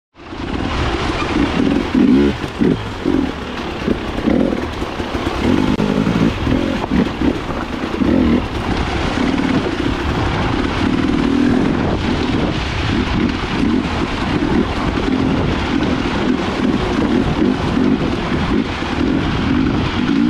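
Husqvarna TE 300 two-stroke enduro motorcycle engine running under load, its revs rising and falling unevenly.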